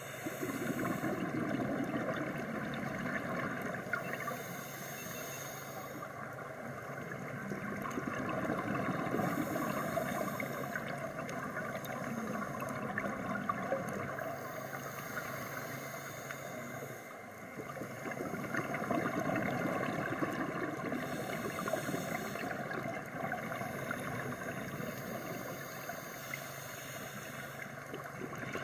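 A scuba diver's breathing heard underwater: the regulator's hiss and bubbling exhaust, swelling and fading in slow cycles every several seconds.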